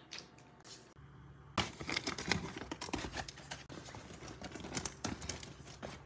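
Paper blind bags rustling and crinkling as a hand rummages through them in a cardboard box, a dense run of crackles that starts about a second and a half in.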